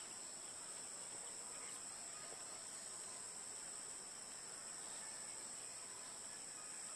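Steady, high-pitched drone of insects, unbroken throughout.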